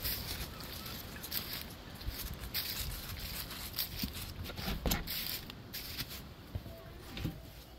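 Footsteps crunching through dry fallen leaves, a step about every half second. The wooden shed door is pulled open about five seconds in, and the crunching fades after that.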